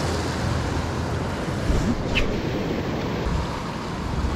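Sea surf washing and breaking against shoreline rocks, with wind buffeting the microphone: a steady rushing noise.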